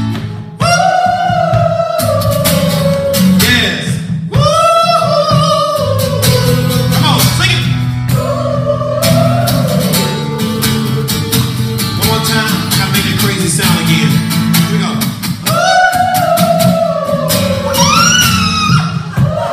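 Live acoustic guitar strumming steady chords under a man singing long, wavering held notes that slide down in pitch, in about five drawn-out phrases with short breaths between them.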